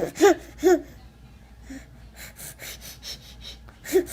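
A baby giggling in quick repeated bursts, trailing off into a run of short breathy gasps, with one brief voiced sound near the end.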